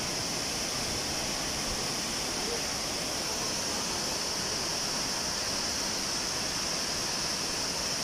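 Wachirathan Waterfall's water falling onto rocks: a steady, even rush with a bright hiss.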